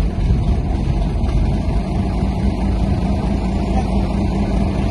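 Crane truck's engine running steadily under load while its hydraulic crane holds and lowers a bundle of boards, with a steady low hum setting in about two seconds in.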